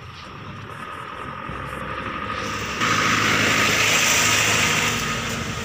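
A motor vehicle passing close by: its engine and a rush of noise build up, hold loud for about two seconds near the middle, then fade.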